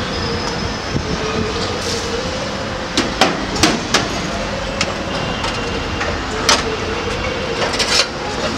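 Steel utensils and glass cups at a tea stall clinking and clanking several times, with a cluster about three to four seconds in and more near the end, over a steady background rush.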